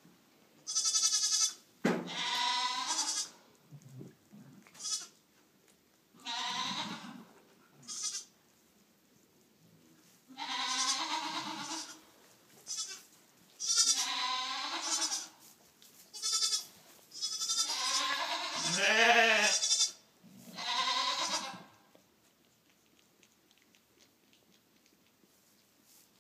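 Southdown Babydoll sheep bleating, about ten separate calls, some long and wavering in pitch, stopping about 22 seconds in.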